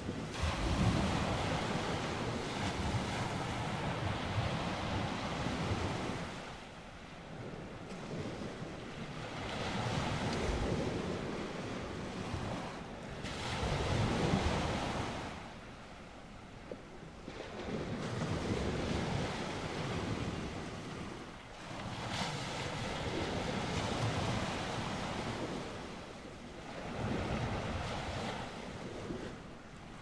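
Ocean waves: a steady rushing wash of water that swells and ebbs in slow surges several seconds apart, about six in all.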